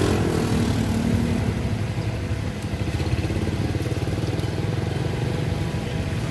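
A motorcycle engine running close by: its pitch drops over the first second or so, then settles to a steady low run.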